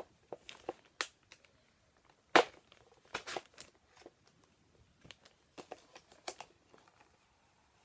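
Stiff clear plastic toy packaging being handled and turned over: a string of crackles and sharp clicks, the loudest about two and a half seconds in.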